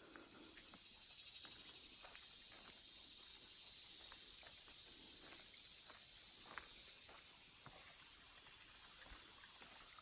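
Steady high-pitched chorus of insects buzzing in the woods. It swells a little in the first half and then eases, with a few faint ticks and clicks scattered through it.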